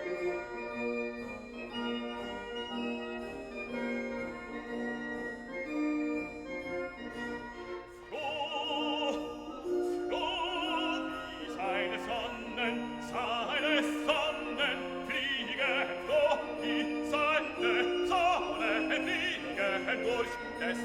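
Background music in a classical style. Sustained keyboard chords play alone at first, then an operatic singing voice with strong vibrato comes in about eight seconds in and carries on over the accompaniment.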